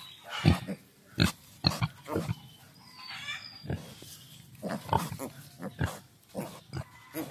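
Native pigs grunting while they root and feed in a pile of green vines: many short grunts at irregular intervals.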